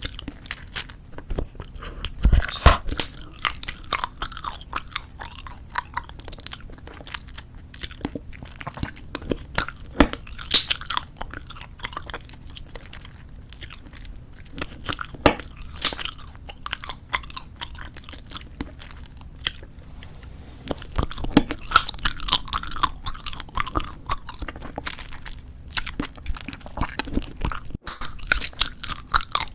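Close-miked chewing of a wad of tube bubblegum: a continuous run of irregular wet clicks and smacks, with louder clusters about two seconds in, around ten and fifteen seconds, and again past twenty seconds.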